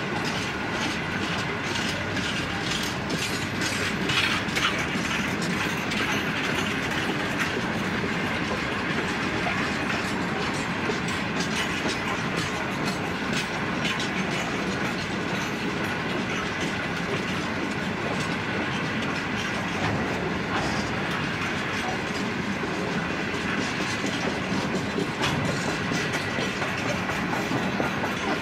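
Loaded-train rolling noise from NGPF and NGKF grain hopper wagons passing on steel rails: a steady rumble of wheels with repeated clickety-clack and short knocks as the bogies cross the rail joints.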